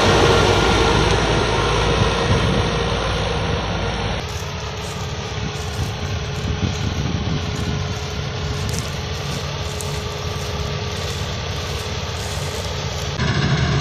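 Diesel engine of a Fortschritt E 514 combine harvester running close by, with a steady whine over it. About four seconds in the sound drops and thins to combine engines idling further off, and it runs steadily to another sudden change near the end.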